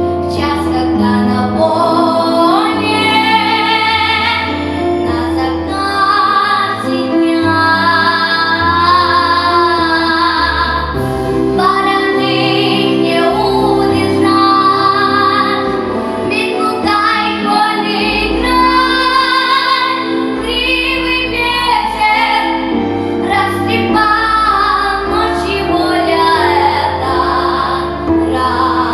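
A female voice singing a song over instrumental accompaniment, holding and sliding between sustained notes.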